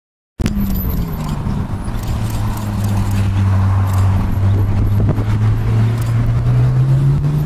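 Ferrari F430 Challenge race car's V8 engine under way on the circuit. Its note drops sharply just after it starts, holds low, then climbs steadily through the last few seconds as the car accelerates.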